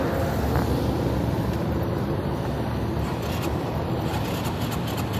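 Steady rumble of motor vehicle engines and road traffic.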